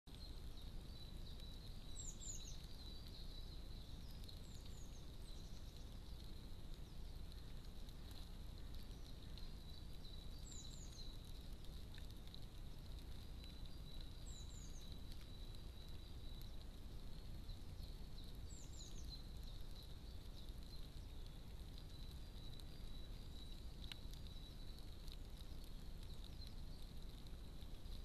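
Faint garden background hiss with a thin steady high whine, broken about five times by brief, high, falling chirps from a small bird.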